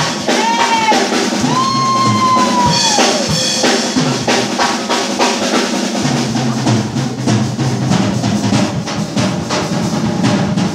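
Live rock band playing loudly: drum kit driving a busy beat under bass guitar, with an electric guitar holding two long high lead notes in the first three seconds, the second sliding down as it ends.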